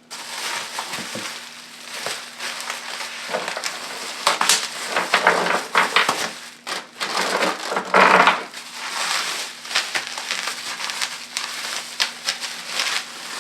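A parcel being unpacked by hand: packing material and plastic wrap crinkling and crushing, with louder crunches about four and a half, five and a half and eight seconds in.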